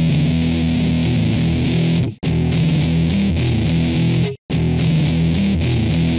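Intro music with distorted electric guitar, briefly cutting out twice.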